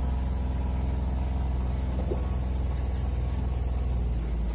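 Engine of a farm vehicle running steadily as it drives across a wet field, heard from inside the cab as a low, even drone.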